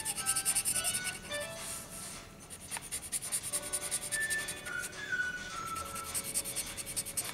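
Felt-tip marker scratching over paper in quick, even back-and-forth colouring strokes, easing briefly about two seconds in. A simple background melody plays underneath.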